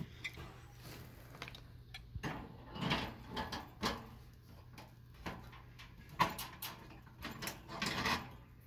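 Metal scraping and clicking as pliers work the bent end of a Coleman camp stove's steel wire grate at its mounting point. A string of short, irregular scrapes and rattles, with a sharp click about six seconds in.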